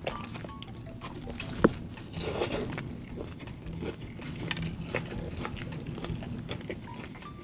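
Close-miked eating: a person biting and chewing fast food, with wet mouth smacks and frequent small clicks, and one sharper click about a second and a half in.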